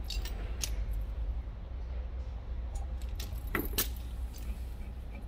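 A few sharp metallic clinks from the Cummins KTA water pump's shaft and housing being handled on a shop press: one just after the start, another about half a second in, and a cluster about three to four seconds in. A steady low hum runs underneath.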